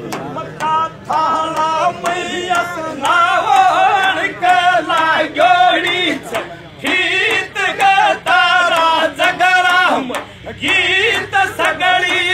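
Men singing a Rajasthani dhamal folk song loudly together, with a wavering, ornamented melody and occasional strokes of a chang frame drum.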